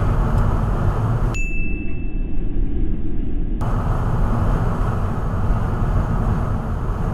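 Steady road and engine rumble of a car driving, as picked up by a dashcam, with a single short high ding about a second and a half in.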